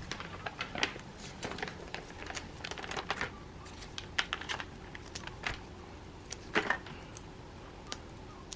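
Irregular light clicks and taps from small hand tools and the iPad frame being handled on a workbench while replacement adhesive strips are fitted. The ticks come at an uneven pace, bunched in the first few seconds, with a couple of louder taps later on.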